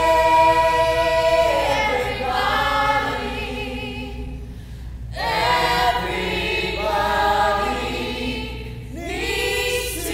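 Voices of a stage-musical cast singing together in held, sung phrases, with short breaks between the lines; a woman's voice leads at the start.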